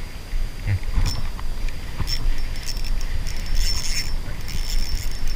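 Spinning reel clicking and ticking as line is wound in, busiest about four seconds in as a fish strikes, with wind buffeting the microphone.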